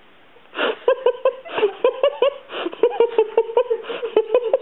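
High-pitched giggling laughter: a long run of quick, even 'hee' pulses at one pitch, broken by gasping in-breaths, starting about half a second in.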